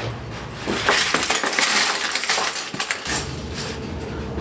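Assorted small hard items tipped out of a bag onto a countertop, a run of clinking and rattling that starts under a second in and lasts about three seconds.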